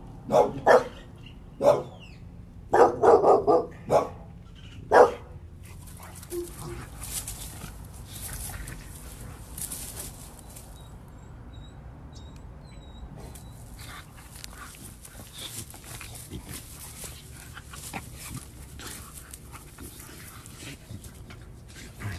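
A dog barking about eight times in quick, short barks over the first five seconds, then two dogs play-fighting on grass, a steady scuffle of rustling and small knocks.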